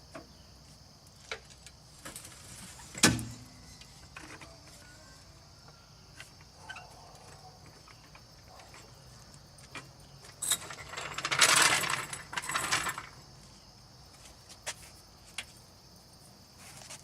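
A car being let down off jack stands with a floor jack. There are scattered metal clicks and one sharp metal clunk about three seconds in, then a couple of seconds of dense ratcheting and rattling past the middle. Crickets chirr steadily throughout.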